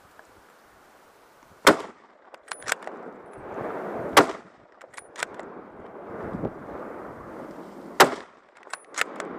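Three hunting rifle shots fired at a wild boar, about two and a half and then four seconds apart, each followed by a few fainter sharp cracks.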